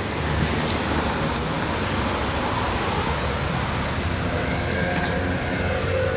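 Steady rain hissing on wet pavement, with faint scattered drop ticks and a low steady hum from traffic underneath.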